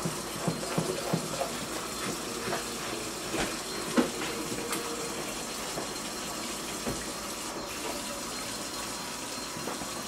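Oil paint being worked onto a stretched canvas: soft scratchy strokes and scattered light taps over a steady hiss, the clearest tap about four seconds in.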